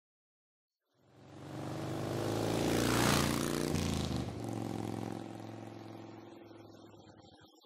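A car driving past: it swells from about a second in, is loudest around three seconds, drops slightly in pitch as it goes by, then fades slowly away.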